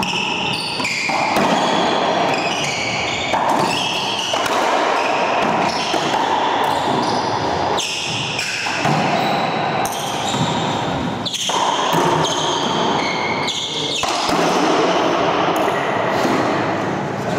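Racquetball rally: the hollow rubber ball smacking off racquets, walls and floor again and again, echoing in the enclosed court, with shoes squeaking on the hardwood floor.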